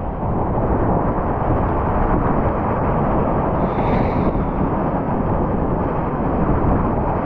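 Steady, loud rush of whitewater rapids at high water, close to the microphone.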